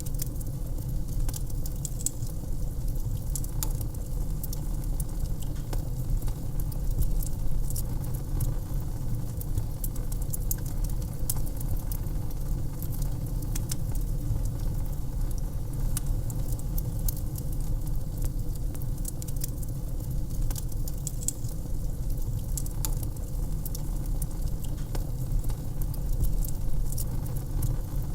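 Wood fire crackling in a fireplace: frequent small irregular pops and snaps over a steady low rumble.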